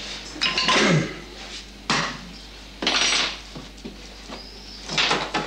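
Butcher's knife working on a pork roast on a wooden block: about four separate scraping, knocking strokes of steel on wood.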